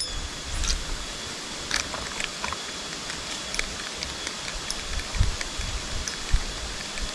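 Steady outdoor hiss with a few faint short ticks and some low bumps.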